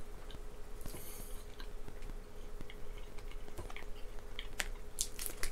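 A person chewing a mouthful of Charleston Chew, a soft chocolate-covered vanilla nougat bar: faint, scattered mouth clicks. A few sharper rustles near the end.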